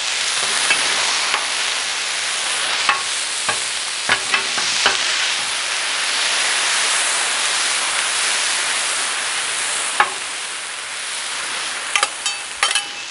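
Diced potatoes frying with a steady sizzle on a Blackstone flat-top steel griddle, while two metal spatulas scrape through them and tossed. The spatulas clack against the steel a few times.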